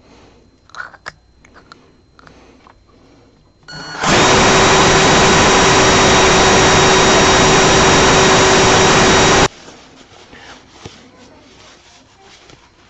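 Cordless electric drill running at steady speed for about five seconds, spinning a propeller shaft inside its freshly greased brass stuffing-box tube, with a steady whine over the motor noise; it starts about four seconds in and stops suddenly. Light handling clicks come before it.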